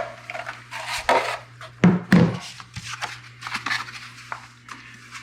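Drywall knife scraping and tapping in a mud pan, scooping up freshly mixed quick-set joint compound to butter a drywall patch: irregular scrapes and short clicks.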